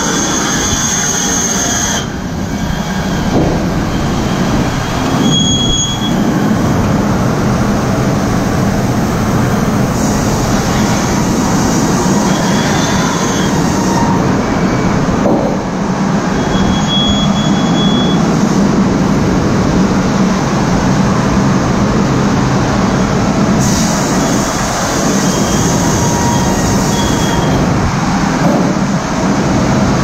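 Steam-powered sawmill machinery running: a steady, loud rumbling din with short high squeals several times.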